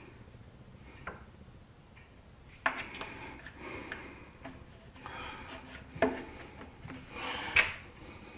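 Hand-fitting of a small engine's air filter assembly: scattered sharp clicks and knocks of parts going together, four clear ones with the loudest near the end, and light rustling handling between them.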